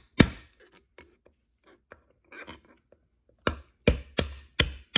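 Hammer blows on a steel punch set against the edge of an old front-wheel bushing in a lawn tractor wheel hub, driving the bushing out. One sharp strike at the start, a few faint knocks and scrapes as the punch is repositioned, then a quick run of five strikes near the end.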